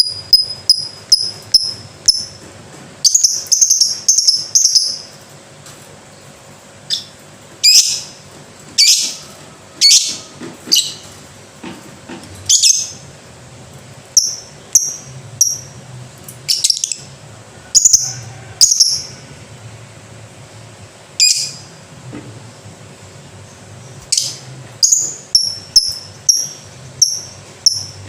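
Lovebird calling: quick runs of short, shrill, high chirps, several a second, broken up by single louder screeching calls about a second apart.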